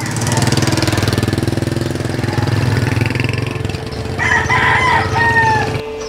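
An engine running steadily, with a rooster crowing once about four seconds in, its last note drawn out and falling.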